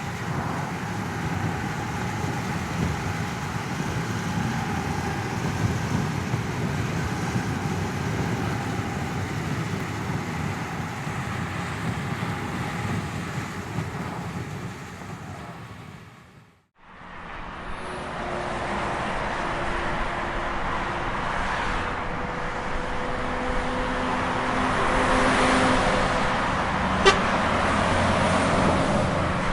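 Car and road-traffic sound effects. A steady run of vehicle noise fades out partway through, then street traffic with car horns sounding several held notes, and a sharp click near the end.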